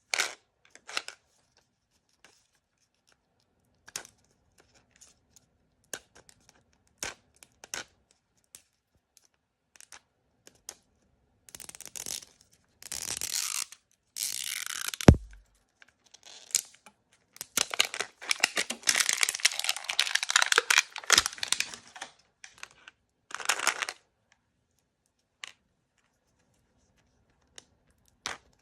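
Blind-bag packaging being torn open and crinkled by hand in several bursts, with scattered light taps and clicks between them and one sharp knock about halfway through, the loudest sound.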